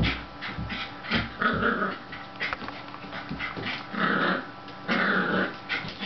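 Jack Russell terriers growling in play while tugging at a ball together, in short irregular bursts, with scattered clicks and scrabbling from paws on the wooden floor.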